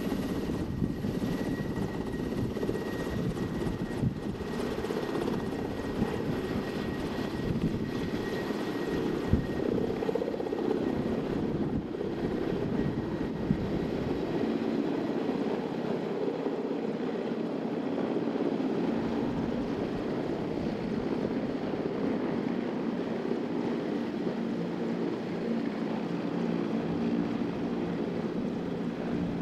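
Mil Mi-17 helicopter's rotors and twin turboshaft engines running as it flies low and comes in to land. About halfway through, the deep rotor noise drops away and a steady whine with several tones takes over as it settles near the ground.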